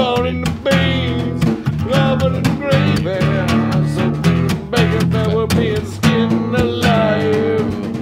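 Band music with guitar and a drum kit keeping a steady beat, and a wavering lead melody over it, between sung lines of the song.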